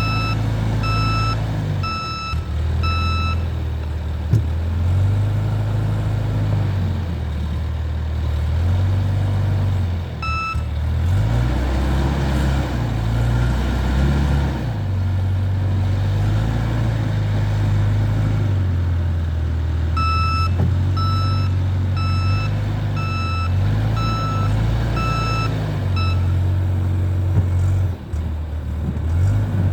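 XCMG SR740RU skid-steer loader engine running and changing speed as the machine works back and forth. Its reversing alarm beeps about once a second whenever it backs up: four beeps at the start, a single beep about a third of the way in, and a run of seven beeps later on.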